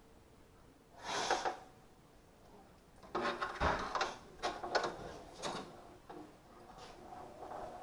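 Handling noises: a short scrape about a second in, then a run of knocks and clatters, like a panel or door being moved and handled.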